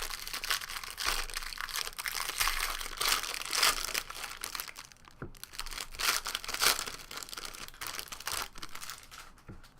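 Plastic trading-card pack wrapper being torn open and crinkled by hand: a dense crackling rustle that dies away near the end.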